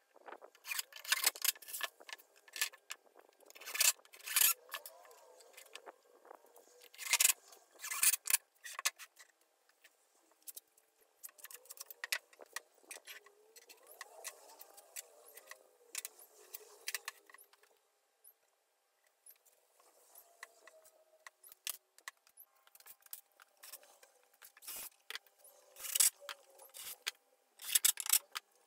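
Sped-up workshop handling sounds: scattered sharp clicks, taps and scrapes of wood and hand tools being picked up, set down and clamped, with short quiet gaps.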